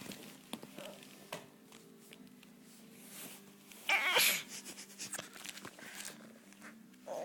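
A dog with the hiccups: faint short hiccups come about a second apart. There is a brief, louder high-pitched whine about four seconds in.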